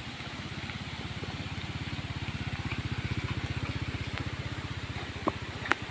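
Small underbone motorcycle's engine running at low speed as it rides past close by, its even firing pulses growing louder to about the middle and then fading as it moves off. Two sharp knocks near the end, the second louder than the engine.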